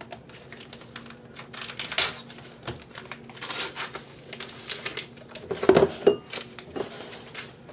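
Paper mix packets rustling and crinkling, with scattered light clicks and taps as a clear plastic container is handled on a countertop. A louder knock comes near six seconds in.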